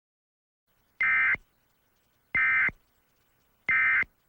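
Emergency Alert System end-of-message (EOM) signal: three short, buzzy digital data bursts, evenly spaced a little over a second apart, marking the close of the alert.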